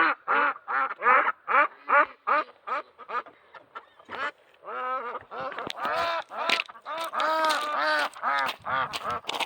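Ducks quacking: a steady run of short calls about two and a half a second, then from about five seconds in several birds calling at once, faster and louder.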